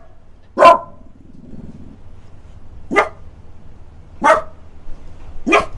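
A dog barking: four short, sharp barks a second or two apart, the first the loudest.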